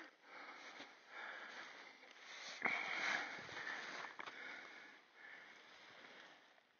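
Soft rustling noise close to the phone's microphone, swelling suddenly about two and a half seconds in and fading after a second or so.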